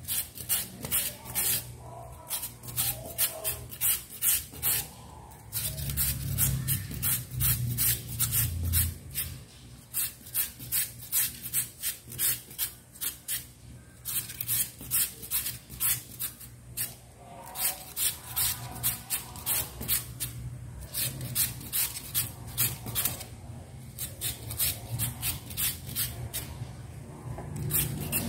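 A peeled carrot being shredded on a handheld julienne grater: quick rasping strokes, about four a second, with a few short pauses.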